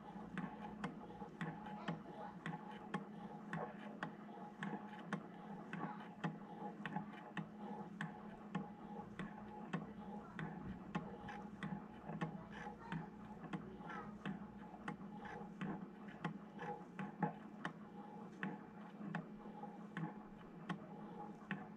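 Low-temperature Stirling engine running, its moving parts ticking in a steady rhythm of about two clicks a second.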